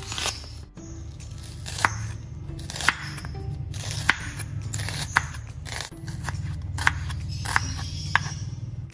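A kitchen knife slicing through an onion, with sharp knocks of the blade on a wooden cutting board about once a second, each with a short crunch.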